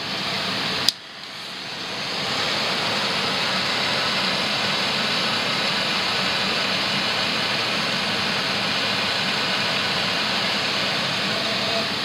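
Handheld propane torch: a sharp click of its igniter about a second in, then the steady hiss of the gas flame, which builds over a second or so and holds.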